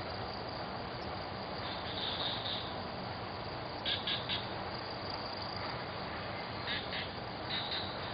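Tree-canopy ambience: short high chirps in quick groups of two to four, several times, over a steady hiss.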